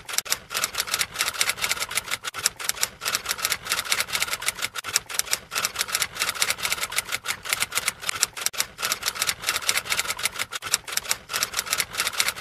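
Typewriter keys clacking in a rapid, unbroken run of keystrokes, the sound of text being typed out.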